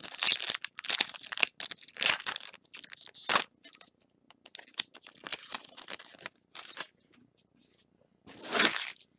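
A foil trading-card booster pack being torn open, its wrapper crinkling and rustling as the cards are pulled out. There is a quick, irregular run of tearing and crinkling for about seven seconds, then a pause and one more rustle near the end.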